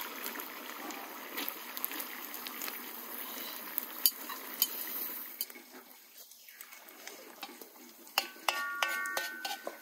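Julienned carrots sizzling as they hit hot oil in a large pot, with clicks of a metal skimmer stirring and scraping; the sizzle dies down about six seconds in. Near the end come a few sharp, ringing clinks of the utensils.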